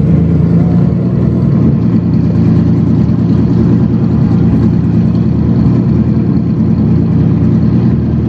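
Pagani Zonda-style supercar's engine running at a steady low-speed rumble as the car creeps up close at walking pace.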